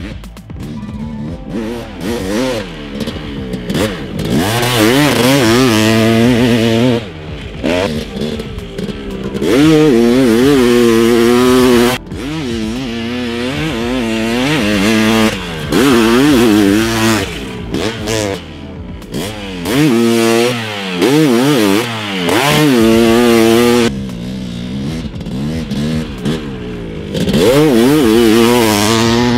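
Honda CR500 two-stroke engine with a dual exhaust, revving hard and falling off again and again as the dirt bike is ridden, with several long full-throttle pulls.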